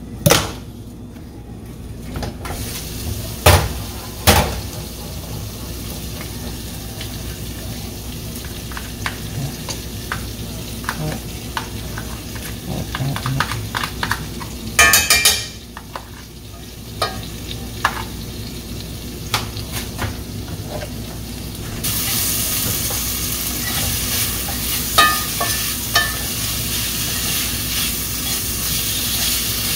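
Vegan sausages and king oyster mushrooms sizzling in a hot cast iron pan, with a few knocks and clatters of the lid and utensils as food is tipped in and stirred. The sizzle turns louder and steadier about two-thirds of the way through.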